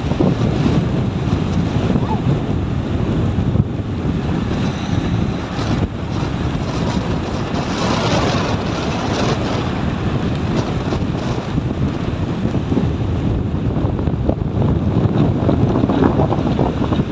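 Strong cyclone wind gusting and buffeting the microphone: a loud, continuous rushing noise that rises and falls.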